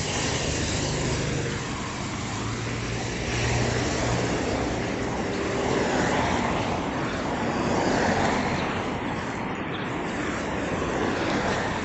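Steady road and wind noise from a vehicle travelling along a street, with a low engine hum in the first few seconds and the noise swelling and easing several times as it moves.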